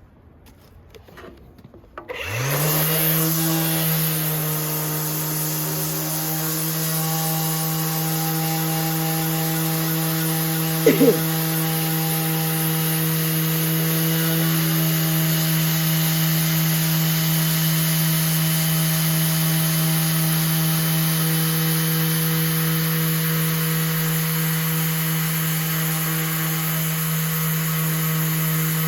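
Electric sander spinning up about two seconds in, then running steadily with a constant hum as it sands the old finish off recycled spotted gum boards with 80-grit paper. A brief louder chirp comes about eleven seconds in.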